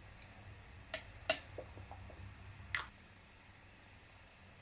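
A few faint clicks and taps as a small plastic bottle of liquid acrylic paint is squeezed and its tip dabbed against cling wrap to drop paint. The two loudest come about a second in and near three seconds.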